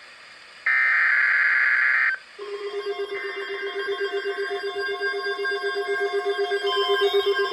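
Emergency alert signalling: a screechy digital header burst of about a second and a half, then after a short break a loud, rapidly pulsing electronic attention tone starts.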